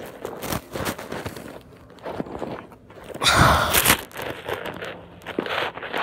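Snow crunching and rubbing right against a phone's microphone as the phone is handled, with a loud scraping rush a little past three seconds in.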